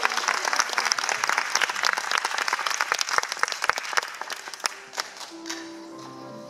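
Audience applauding, the clapping thinning out after about five seconds as a held musical note comes in.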